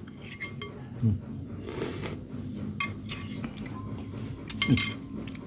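Eating with a spoon from a bowl: a few light clinks of the spoon against the bowl, and slurping of cuko, the sour pempek sauce, off the spoon about two seconds in and again near the end.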